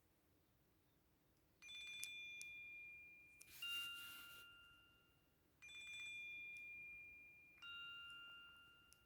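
Nokia C3 mobile phone playing one of its ringtones through its speaker. Two bell-like tones alternate, a higher one then a lower one, each ringing out and fading over about two seconds, and the pair is played twice. A short hiss comes with the first lower tone.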